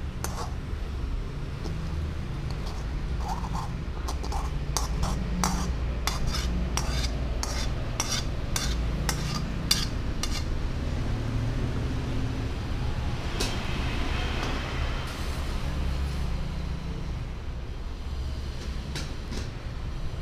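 Metal spoon clinking and scraping against an aluminium pot as cooked noodles are scooped out, a quick run of sharp clinks over the first half with fewer later, over a steady low background rumble.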